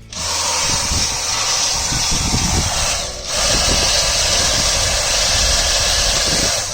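Dyson V7 Trigger Pro cordless handheld vacuum running, a steady high whooshing hiss of motor and suction airflow that starts suddenly. It cuts out for a moment about three seconds in, starts again, and stops near the end.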